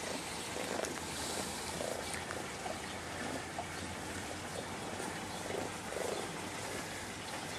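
Young raccoon making soft, purr-like churring sounds, repeated about once a second, while held and petted: the sound of a content raccoon.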